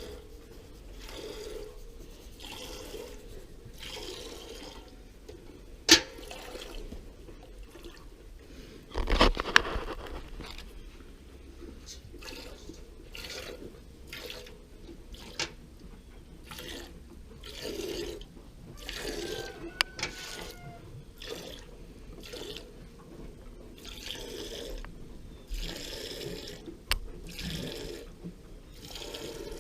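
Cow being hand-milked into a pail: squirts of milk hitting the pail in a regular rhythm, about one a second. A few sharp knocks break in, the loudest about nine seconds in.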